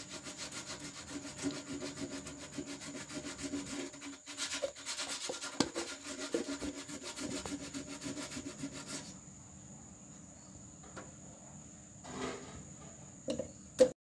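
Fast, even back-and-forth scrubbing strokes of hand abrasive work on a part being cleaned up, which stop about nine seconds in. A faint steady hum follows, with a few light knocks and a sharp click near the end.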